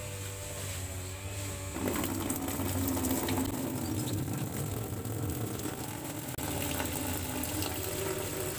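Tap water pouring and splashing into a plastic tub, starting about two seconds in. Behind it runs the steady buzz of a grass cutter's engine.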